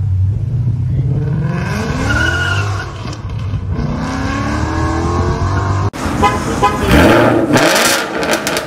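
Ford Mustang GT's 5.0 Coyote V8 running through long-tube headers, a catted X-pipe, a resonator delete and a Magnaflow Street Series axle-back, accelerating hard. The revs climb, dip once for a gear change and climb again. About six seconds in, the sound cuts abruptly to a louder, harsher stretch.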